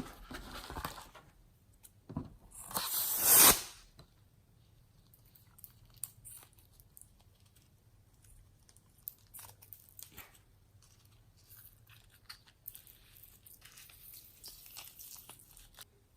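Handling noise from slime-making: a loud rasping burst about a second long near the start, then faint scattered clicks and rustles.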